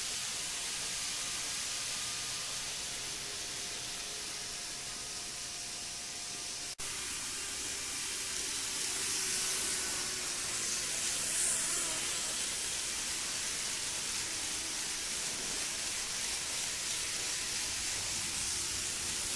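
Kato N-scale 500 series Shinkansen model train running around the track: a steady hissing whir of motor and wheels, loudest as it passes close to the microphone about eleven seconds in. The owner counts this running noise as far too loud for the model.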